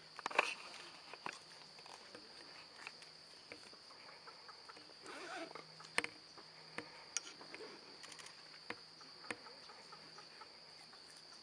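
Steady high-pitched drone of insects calling, with scattered sharp clicks and taps over it; the loudest clicks come just after the start and about six seconds in.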